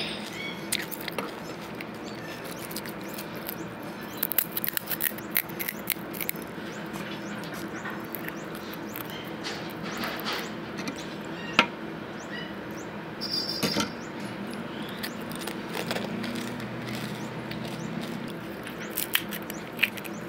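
Pani puri being eaten: crisp hollow puri shells cracked open with a finger and crunched while chewing, heard as scattered sharp cracks and short crackly bursts over a steady low hum.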